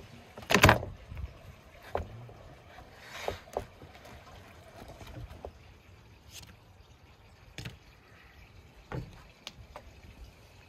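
Plastic cheese-draining colanders knocking on a wooden table as they are handled: one loud knock about half a second in, then a scattering of lighter knocks and a short scrape.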